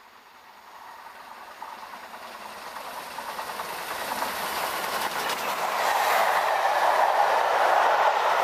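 LMS Black Five steam locomotive 45305 and its train approaching at speed and running through the station, growing steadily from faint to loud as it nears and passes, with the clatter of wheels on the rails.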